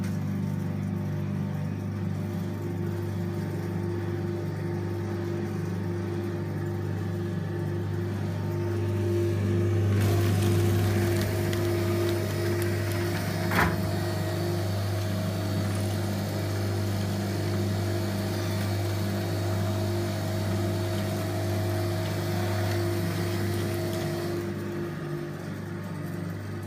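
Riehle bakery topping machine running: its conveyor drive hums steadily. About ten seconds in a hiss joins the hum, with one sharp click a few seconds later. The hiss drops away near the end.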